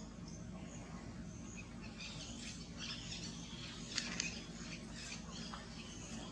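Faint, scattered high-pitched animal squeaks and chirps over a steady low background, with a couple of sharp clicks about four seconds in.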